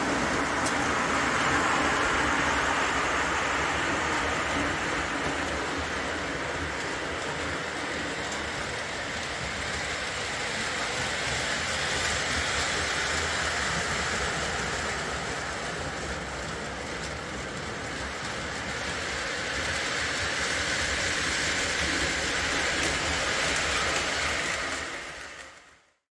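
Several postwar Lionel O-gauge locomotives with Pullmor motors running on three-rail track: a steady whir of motors and gears with the clatter of wheels on the rails, growing louder and softer by turns. It cuts off suddenly near the end.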